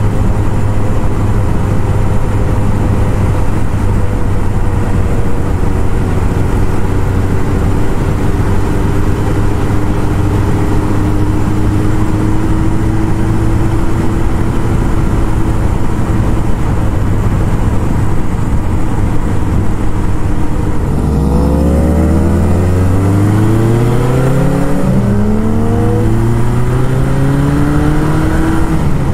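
Kawasaki KZ1000 inline-four engine running at a steady cruise over wind noise, then about three-quarters of the way through pulling hard under acceleration. Its pitch climbs, dropping back at a couple of upshifts.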